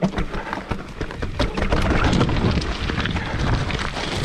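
Mountain bike clattering over rough, stepped trail: a jumble of quick knocks and rattles from the tyres and frame over a buffeting low rumble of wind and jolts on the camera microphone. It starts abruptly and louder at the very start.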